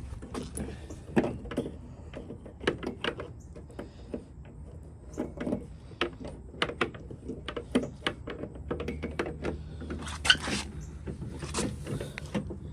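Irregular small clicks and knocks from handling and fitting a turn signal bulb socket into a car's plastic headlight housing, over a steady low hum.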